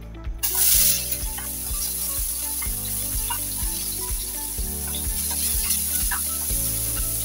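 Sliced onions dropped into hot oil in a frying pan: a loud sizzle as they hit, a little under half a second in, then steady frying as they are stirred.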